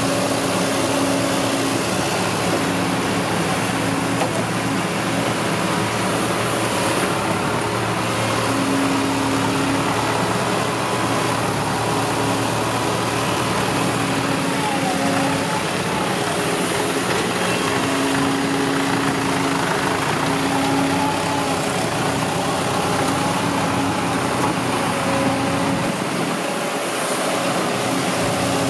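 Kobelco SK140 crawler excavator running steadily while it digs, with a humming tone that comes and goes several times as the machine works.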